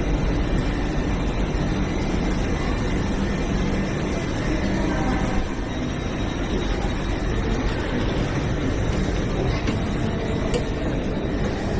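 Steady low hum and rumble of a train standing at a station platform before departure, with faint voices in the background.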